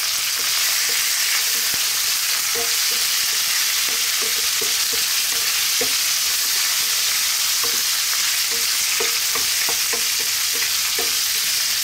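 Pork belly sizzling in hot oil with ginger and garlic as it is sautéed, with a steady hiss. A wooden spatula stirs it, making irregular light knocks and scrapes against the pan.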